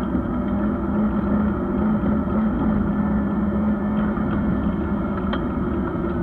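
Skoda Felicia rally car's engine running under load, heard from inside the cabin, with the rumble and rattle of the car driving fast over a rough dirt field track. The engine holds a steady note for the first few seconds, then wavers, and a few sharp clicks come near the end.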